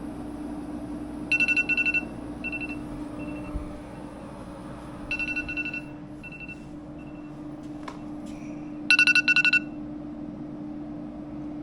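Digital thermostat beeping as its buttons are pressed during setup: three quick runs of high electronic beeps with a few single short beeps between them, over a steady hum.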